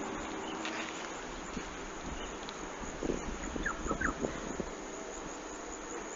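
Outdoor rural ambience with steady wind noise and no mooing. A cluster of short chirps and soft knocks comes about three to four seconds in.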